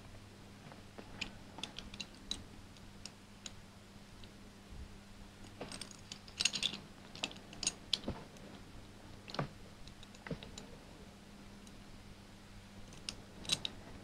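Cast metal pieces of a Hanayama Cast Padlock puzzle clicking and tapping against each other as they are turned and slid in the hands: scattered faint clicks, busier around the middle and again near the end.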